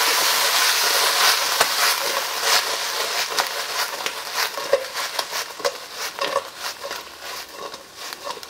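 Filefish flakes sizzling in a hot frying pan as they are tossed, with scattered crackles and pops. The sizzle is loudest at first and dies down over several seconds.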